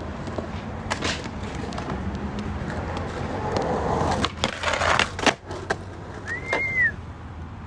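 Skateboard wheels rolling on concrete, with clacks and a loud hit of the board about five seconds in. A short high squeak that rises and falls follows about a second later.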